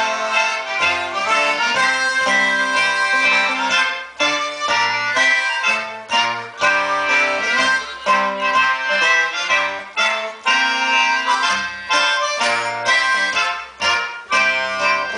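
Live acoustic folk band playing an instrumental passage, with trumpet and trombone, harmonica and a squeezebox over a low line of short, evenly paced notes.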